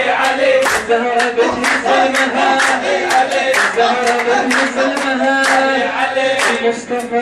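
Men's chorus singing a celebratory folk chant, with a lead voice over a microphone, accompanied by loud rhythmic group hand clapping.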